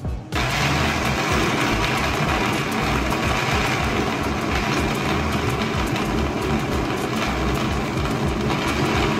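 Countertop electric blender switched on about a third of a second in, its motor running steadily as it purees a red pepper mix.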